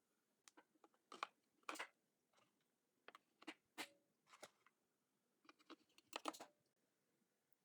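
AA batteries being fitted into the plastic battery compartment of a Revolo keypad deadbolt's interior assembly: a scattering of faint clicks and taps, the clearest pair just over a second in and a small cluster about six seconds in.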